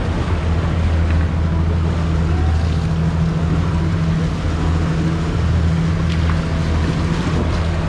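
A fishing boat's outboard motor running steadily under way, a low even hum over wind and water noise.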